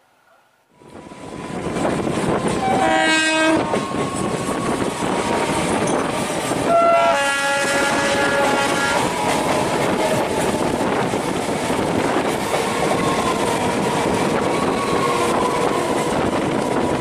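Electric multiple unit (EMU) suburban train running at speed, heard from its open doorway, with loud wheel and track clatter and rushing air. Two horn blasts sound, a short one about three seconds in and a longer one about seven seconds in.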